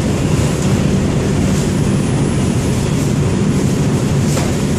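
Inside an R142 New York City subway car under way in the tunnel: a loud, steady rumble of wheels on rail and running gear, with a faint click near the end.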